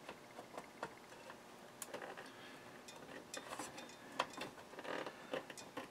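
Faint, irregular clicks and light plastic rattles of fingers working a power-supply cable connector loose inside a desktop PC case.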